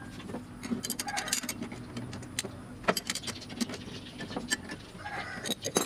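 Irregular metal clinks and ticks of a wrench working the table saw's arbor nut against the Avanti Pro dado stack's blades and chippers as the nut is tightened to lock the stack.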